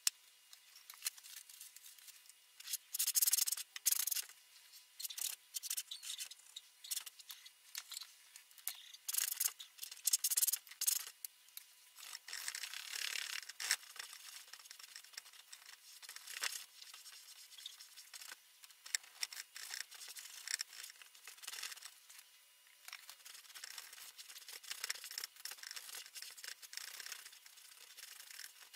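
Paintbrush scrubbing oil paint onto a stretched canvas: irregular scratchy strokes, some short and sharp, with a longer stretch of continuous scrubbing a little before the middle.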